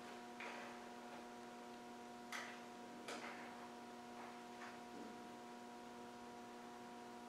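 Quiet, steady electrical hum with a few faint, short clicks and taps scattered through it, the clearest a little over two and three seconds in.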